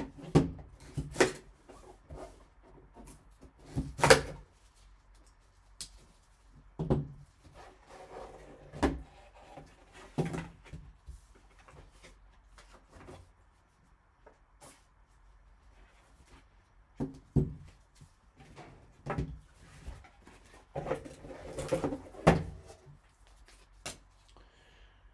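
Hands handling a cardboard trading-card box and its contents: scattered sharp taps and clicks of cardboard and plastic, with two short stretches of paper rustling.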